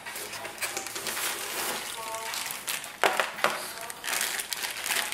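Clear plastic packaging bag crinkling and cardboard box packaging rustling as a bagged cable is lifted out of the box, with louder crackles about three seconds in and again near the end.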